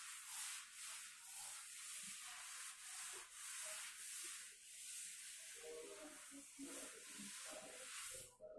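A blackboard being wiped with a duster: a faint rubbing hiss in steady back-and-forth strokes, a little faster than one a second.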